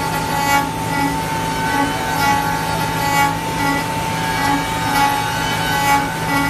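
Spindle of a CF-MASTERT2-28 5-axis CNC router running with a steady high whine while its router bit cuts along the edge of a curved wooden workpiece, the cutting noise swelling every half second to a second.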